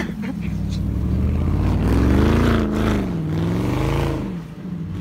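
BMW X5's engine revving up and down as the SUV drifts on snow, the pitch climbing to a peak about two seconds in, dropping, then rising again just before four seconds.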